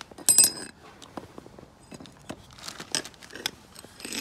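Hand snips biting into a hard plastic hose near its aluminium ferrule: a loud, sharp crunching snap near the start, then scattered smaller crunches and clicks as the jaws are worked on the plastic.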